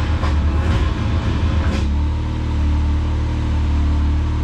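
An engine running steadily at idle with a low hum, with a few light knocks in the first two seconds.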